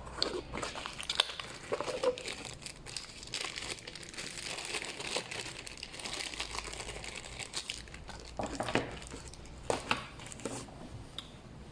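Crinkling and crumpling, as of plastic packaging being handled, with irregular light clicks and taps throughout.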